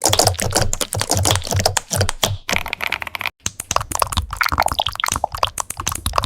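Dense, rapid crackling and clicking of a squishy material being squeezed and pressed by hand, with a brief break about three and a half seconds in.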